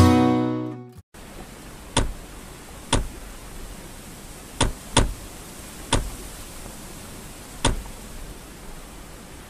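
Strummed acoustic guitar music fades out about a second in. A steady faint hiss follows, broken by six sharp, short taps at uneven intervals, two of them close together in the middle.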